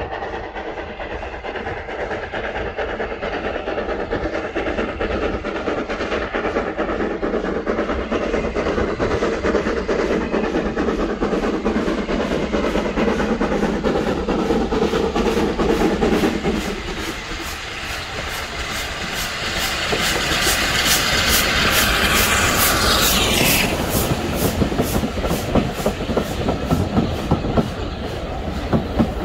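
A steam train approaching and passing close by: the locomotive's working grows louder, and a hiss of steam falls in pitch as the engine goes past about two-thirds through. The carriages follow with a rhythmic clickety-clack of wheels over rail joints, quickening near the end.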